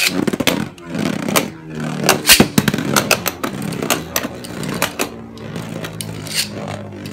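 Two Beyblade Burst spinning tops, Fengriff F2 Force Quake and Gaianon G2 Quarter Fusion, spinning in a plastic stadium. There is a steady whirring hum with repeated sharp plastic clacks as they collide. The clashes are thickest in the first three seconds, with the loudest about two seconds in, and grow sparser after that.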